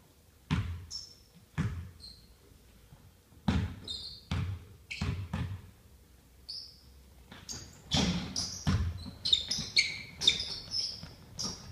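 Basketball bouncing on a hardwood gym floor, a few separate bounces at first and a quicker run of bounces in the second half, echoing in the hall. Sneakers squeak on the floor in short bursts near the end.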